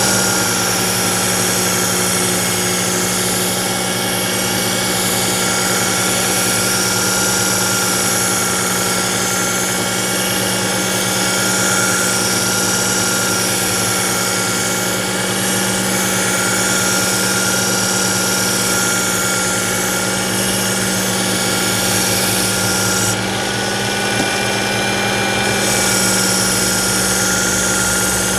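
Work Sharp electric belt sharpener running with a kitchen knife blade ground on its fine X4 abrasive belt: a steady motor hum and whine under a high grinding hiss. The hiss drops away briefly about two-thirds through, then returns.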